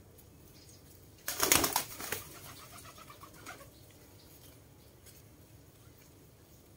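Pigeon flapping its wings in a short loud flurry about a second in, trailing off into fainter flutters.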